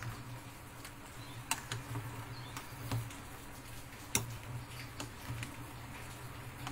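Metal ladle clinking against a steel cooking pot while stirring syrup with kolang kaling and cassava: a few sharp, scattered clicks over a steady low hum.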